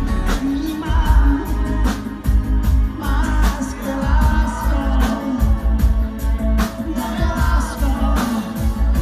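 Live pop-rock band playing with a male lead singer: a steady drumbeat, bass and sung melody.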